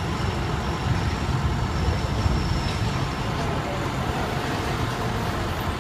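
Steady low rumble of a parked ambulance's engine idling, with street traffic around it.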